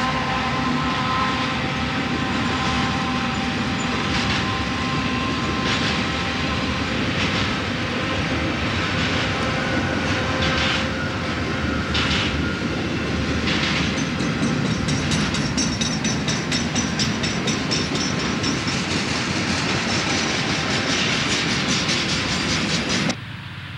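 Santa Fe diesel-electric freight locomotives running close by, then intermodal flatcars rolling past with their wheels clicking over rail joints. A thin high squeal from the wheels joins in over the second half. The sound drops away abruptly just before the end.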